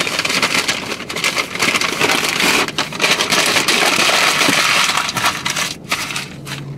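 Brown paper bag crinkling and rustling as it is handled and opened, loud and close, easing off after about five seconds.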